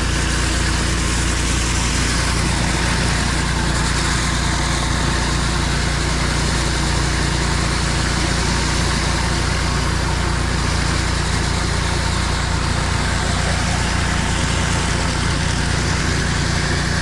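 Gas-engine pressure washer running steadily, its engine drone under a continuous hiss.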